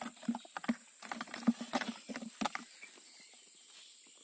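A freshly landed large tilapia flapping and slapping its body against the ground in quick, irregular knocks. The knocks stop about two and a half seconds in.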